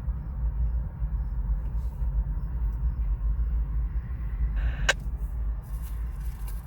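Low steady rumble of the BNSF train's GE ES44 diesel locomotives. About five seconds in, a scanner radio gives a short burst of static ending in a click, like a key-up or squelch.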